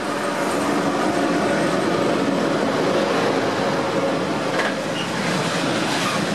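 PKP Cargo ET42 twin-section electric freight locomotive passing, followed by a train of open coal wagons rolling by: a steady rumble of wheels on rail that builds as the locomotive comes up, with a few faint wheel clicks.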